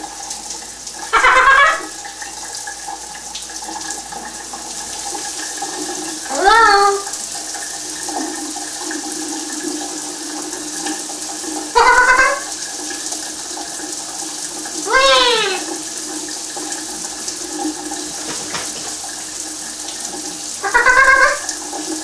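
Shower water running with a steady hiss, while a green-winged macaw gives five short calls spaced a few seconds apart, each under a second and rising then falling in pitch.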